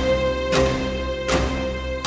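Background music: steady held tones with a sharp percussive hit about every 0.8 seconds.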